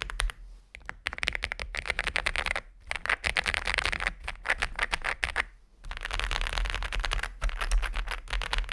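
Fast typing on the Aula F81 mechanical keyboard: dense runs of key clicks in three bursts, with brief pauses between them.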